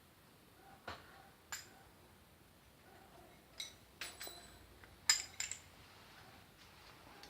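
Small metal parts and tools clinking against each other while a chainsaw clutch is taken apart: about seven sharp, ringing clinks at irregular intervals, the loudest about five seconds in.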